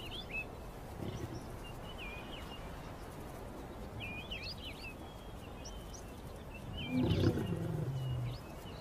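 A lion gives a low, drawn-out growl lasting about a second and a half near the end. Under it is a steady outdoor background with small birds chirping high throughout.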